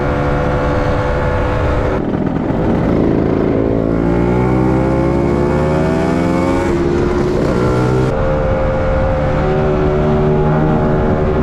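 Motor scooter engine heard from the rider's own seat, running under load. It changes about two seconds in, rises steadily in pitch for several seconds as the scooter picks up speed, then changes again near eight seconds in and runs steady.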